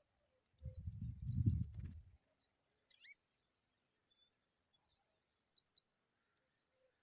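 Short, high skylark chirps: a quick pair about a second in, a single lower note around three seconds, and another quick pair near six seconds. A low rumble runs through the first two seconds.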